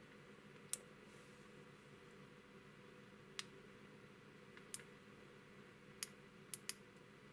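Six short, sharp clicks of the soldering iron's small push buttons being pressed, spread out, with the last two in quick succession near the end, over a faint steady hum.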